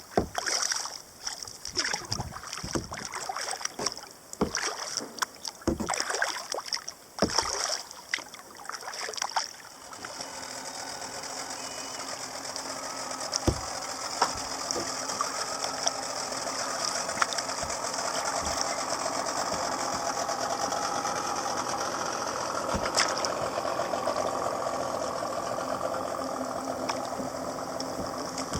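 Kayak paddle strokes dipping and splashing in the water for about the first ten seconds. Then a motorboat engine runs steadily and grows gradually louder.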